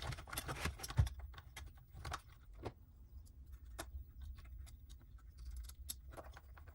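Scattered clicks and light knocks of small floppy-drive parts being handled and fitted into place, the loudest about a second in.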